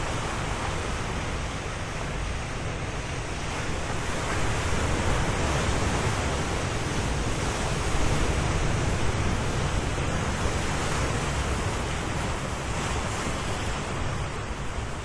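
Ocean surf: waves breaking and washing in as a steady rush. It swells louder from about four seconds in and eases off again toward the end.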